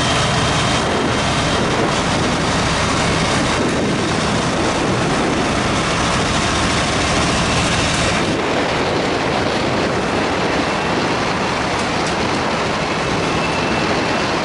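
British Rail Class 66 diesel-electric locomotive with its two-stroke V12 engine running steadily as it hauls a freight train, with the rumble of the train on the rails. Heard from a vehicle driving alongside, under a steady rush of wind and road noise.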